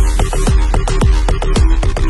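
Loud electronic dance music driven by a steady, heavy kick-drum beat, with a brief wash of hiss at the start.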